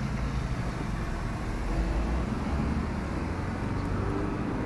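Steady engine and road noise of a moving vehicle, heard from inside its cabin.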